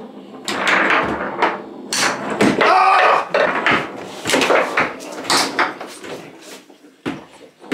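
Foosball game: the ball and rod-mounted players knocking and clacking against the table in a run of sharp hits, with excited voices in between.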